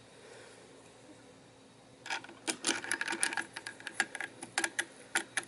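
Phillips screwdriver working the screw of a steel pipe clamp: irregular metallic clicks and scrapes of the driver tip and screw against the clamp, starting about two seconds in.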